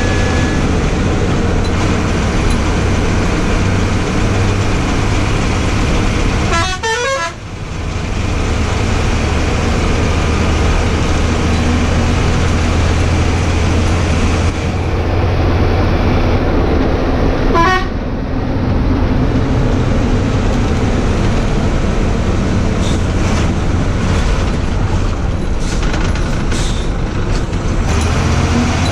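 Ashok Leyland tourist bus's diesel engine running under way, heard from the driver's cab, its steady low note dipping briefly about seven seconds in. A horn toots amid the traffic.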